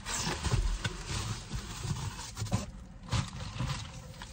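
Cardboard shipping box being handled and a plastic-wrapped item worked out of it: irregular scraping, rustling and small knocks.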